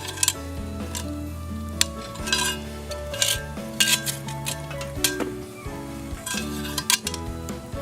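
A metal utensil scraping and clinking in a pan, several sharp clinks and short scrapes, over background music with slow held notes.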